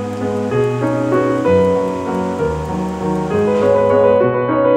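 Background music of piano chords, with a soft high shimmer and light ticking rhythm over it that drops out about four seconds in.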